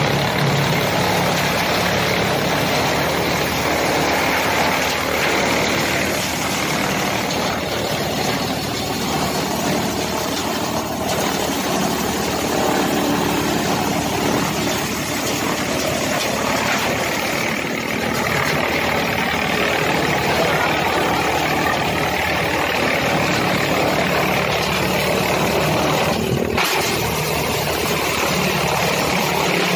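Tractor-PTO-driven chaff cutter running at steady speed with its tractor engine, a continuous loud mechanical din, while long poles are fed into its cutter.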